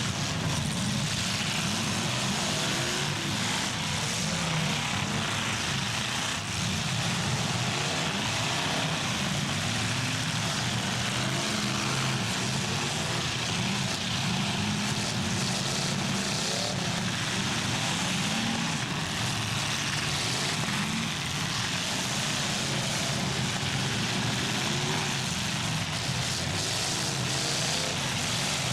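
Several demolition derby cars' engines running and revving hard together, the pitch rising and falling as the cars accelerate and back up.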